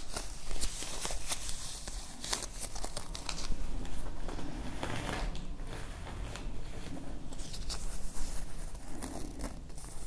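Fresh sage leaves handled close to the microphone, rubbed and crinkled between the fingers with many small crackles and rustles.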